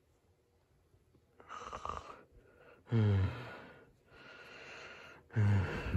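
A person making sleeping sounds with the voice, breathy noises alternating with short voiced groans that fall in pitch, twice each.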